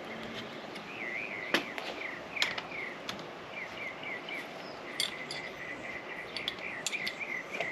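A small bird singing repeated high warbling chirps, with a few sharp clicks in between.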